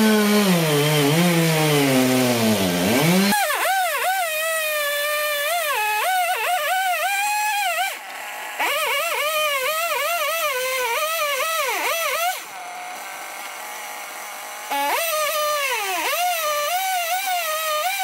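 Two-stroke chainsaw running at high revs and cutting: its pitch keeps sagging as the chain bogs in the wood, then climbing again. The sound jumps abruptly several times.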